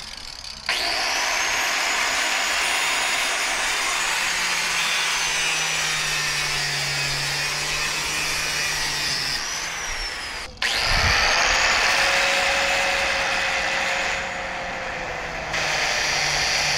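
Angle grinder cutting through a motorcycle's drive chain. It spins up about a second in and runs with a steady high whine, cuts out briefly a little past the middle, then starts again.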